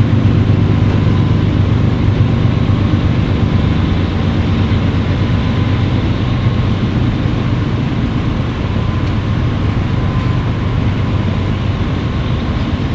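BNSF double-stack intermodal train's container cars rolling past on the rails: a steady, loud rumble of steel wheels on track, with a faint steady high tone running through it.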